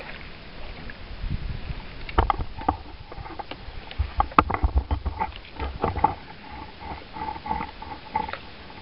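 Handling noise right at the camera microphone: several sharp knocks and low rumbles as the plastic stripping basket is set down and the camera is handled, over light water lapping.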